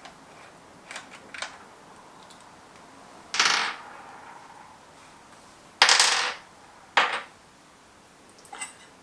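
Sharp metallic clinks of tools and bike parts being handled and set down: a few faint ticks, then three louder clinks with a short ring about three, six and seven seconds in.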